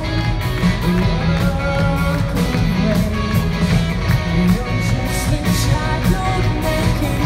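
Live rock band playing amplified through a theatre PA: electric guitars, bass guitar, drums and synth, with a woman singing lead over the band.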